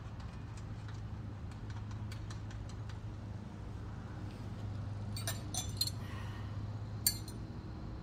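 Metal hand tools clinking as they are handled: several sharp clinks about five seconds in and one more near the end, over faint ticking and a steady low hum.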